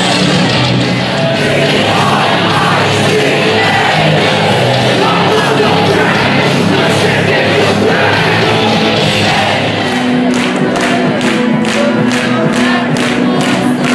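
Heavy metal band playing live and loud through a venue's sound system, with singing and crowd noise. About ten seconds in, a steady drum beat of roughly two to three hits a second comes to the front.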